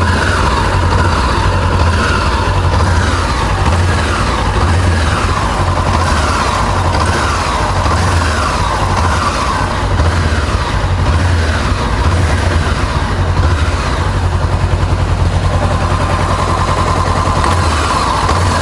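Honda CBR400R's parallel-twin engine idling while the throttle is blipped over and over, the revs rising and falling about every second and a half, then settling to a steady idle near the end. The owner hears a faint click near the engine with each throttle opening and closing, which he suspects is a fuel-injection operating noise rather than a fault.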